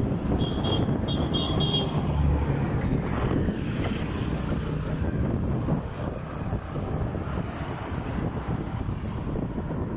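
Wind rumbling on the microphone while moving along the road, mixed with the hum of passing road traffic. In the first two seconds a quick series of short high-pitched tones sounds.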